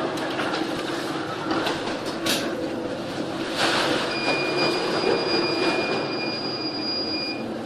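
Ship in a Force 12 storm: a steady roar of wind and sea with clanking and rattling aboard. A steady high-pitched whistle is held for about three seconds in the second half.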